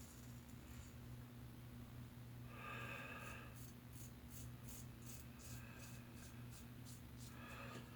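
Faint scrape of a razor cutting lathered stubble in quick short strokes, over a steady low electrical hum.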